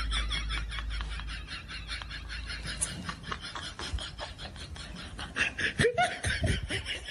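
Laughter sound effect: a fast, even run of snickering pulses that fades somewhat, with a few lower sliding voice sounds near the end.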